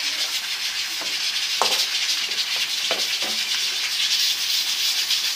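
Ginger-garlic paste sizzling in hot oil in a pan, a steady hiss, with a few short scrapes or taps of the stirring spoon.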